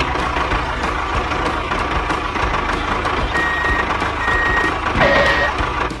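Vehicle engine running steadily, with a reversing alarm beeping three times in the second half, the signal that the tractor is backing up.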